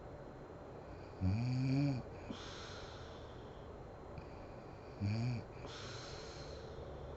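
A sleeping woman snoring heavily: two snores about four seconds apart, each a short low humming note that slides in pitch, followed by a longer hissing rush of breath.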